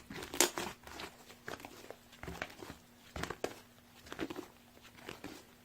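Slime being squished and pressed by hand, making scattered small clicks and crackles, over a faint steady hum.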